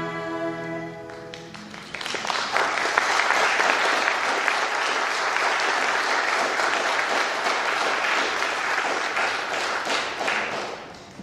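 The last held chord of the music fades out, then the congregation applauds for about eight seconds before the clapping dies away near the end.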